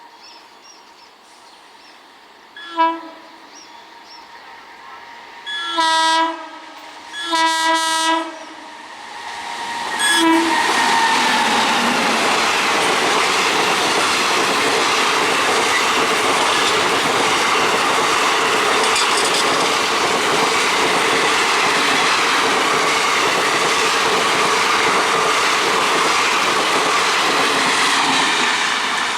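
Train horn blowing a series of blasts: a short toot, two longer blasts and a final short toot. Then the train passes close by at speed, a loud steady rumble with wheel clatter on the rails.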